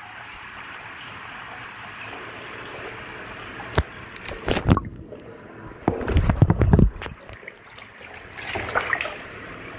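Bathwater splashing as a rubber dinosaur hand puppet is pushed through it: a few sharp splashes around four seconds in and a louder burst of splashing about six to seven seconds in, over a steady hiss of running water.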